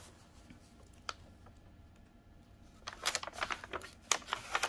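Clear plastic film covering a diamond painting canvas rustling and crackling as it is handled. One click about a second in, then a quick run of short crackles from about three seconds in.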